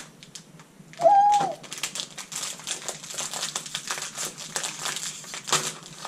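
Crinkly plastic candy wrapper being torn open and handled, a dense run of crackles. About a second in, a short hummed voice sound stands out above it.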